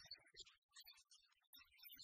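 Near silence, with faint, broken-up fragments of a person's voice.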